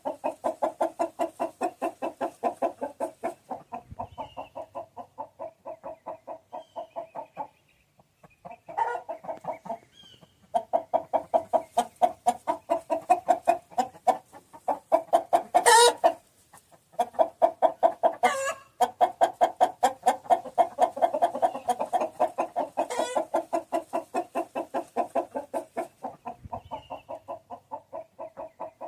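Domestic chicken clucking in long rapid runs of about four clucks a second, pausing briefly a few times, with a few louder, sharper calls in the middle.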